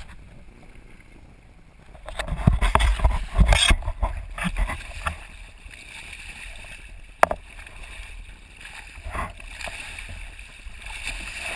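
Wind and choppy sea water on a handheld action camera's microphone held low over the waves, with a loud stretch of rough buffeting and handling bumps about two seconds in and one sharp knock later on.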